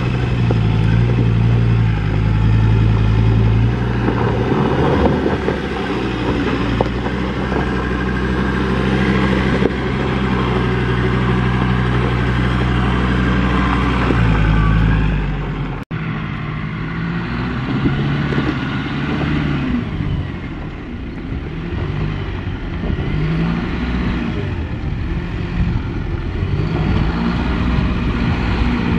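Ford Ranger PX's diesel engine working steadily under load as the ute crawls up a rough dirt track, with tyres crunching over sand and rock. It cuts off suddenly about halfway, and the Isuzu NPS 4x4 truck's diesel engine takes over, its pitch rising and falling as it pulls over the same ground.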